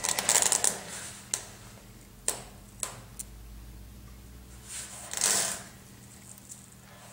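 Handling noise: a cluster of rustling and clicks, then a few single sharp clicks and a short rustle, over a faint steady low hum.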